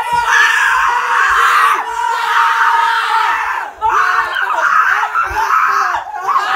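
A group of teenage boys screaming and yelling together in excitement, celebrating reaching 150 subscribers, with brief breaks a little before four seconds in and near the end.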